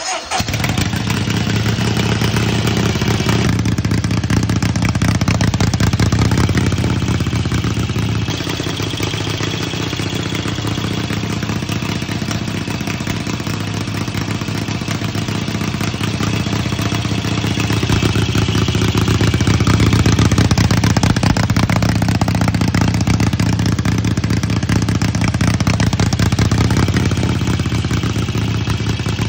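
1946 Harley-Davidson 45 WR flathead V-twin race engine running steadily. It gets slightly quieter about eight seconds in and louder again from about eighteen seconds.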